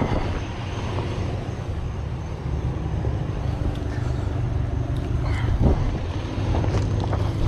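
A vehicle engine running steadily with a low hum, with a few short noises at the start and again about five and a half seconds in.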